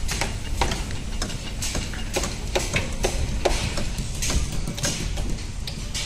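Construction-site work on timber column formwork: scattered sharp knocks and clanks, several a second at times, over a steady low rumble.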